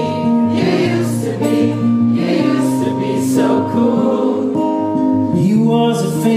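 Live acoustic music: two acoustic guitars strummed in a steady rhythm under singing that holds long notes.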